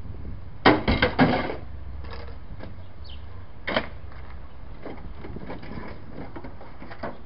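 A quick run of knocks and clatter about a second in, a single knock near four seconds, then light scattered clicks, over a low steady hum.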